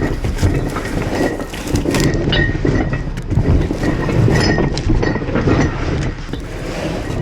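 Cargo van moving with a steady low rumble and irregular clattering and clinking rattles.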